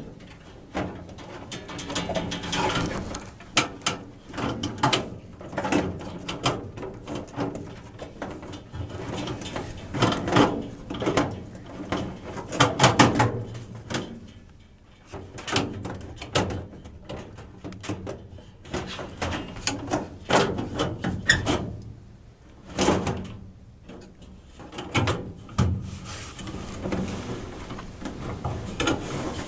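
Furnace filter being worked in a metal furnace vent: irregular scraping, sliding and knocking as it sticks and is pushed and pulled.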